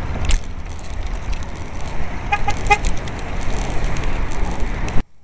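Loud wind and road rumble on a cycling helmet camera's microphone, with traffic passing close. About halfway through, a horn gives two short toots. The noise cuts off abruptly just before the end.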